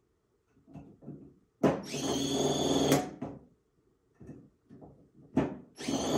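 Sumake inline cordless screwdriver's brushless motor whirring as it runs a screw down for about a second and a half, ending in a sharp click as the auto-shut-off clutch trips at the set torque. Light knocks of handling follow, and a second screw starts running down near the end.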